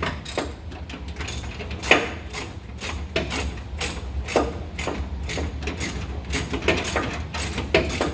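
Hand ratchet and metal tools clicking and clanking at irregular intervals while the steering box mounting bolts are tightened through new solid aluminium spacers, over a steady low hum.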